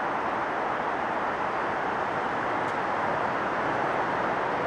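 Steady rushing rumble of a train approaching the station along the tracks, slowly getting louder.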